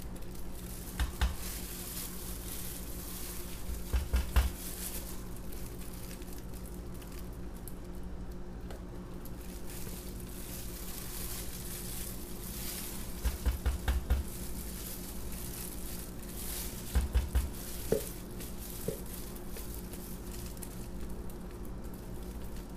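Silicone spatula scraping thick soap batter out of a plastic pitcher into a soap mold, with crinkly plastic-glove rustle and a few clusters of three or four quick knocks: about a second in, around four seconds, and twice more in the second half.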